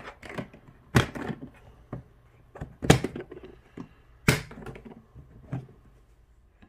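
The box of a new air rifle being opened by hand: a string of sharp clicks and knocks with handling noise between them. The three loudest come about one, three and four seconds in.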